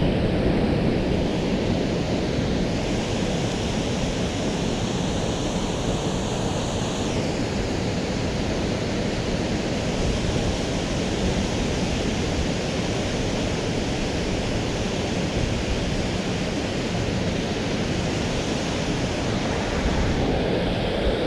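Steady rush of water pouring through and below a dam, mixed with gusty wind buffeting the microphone.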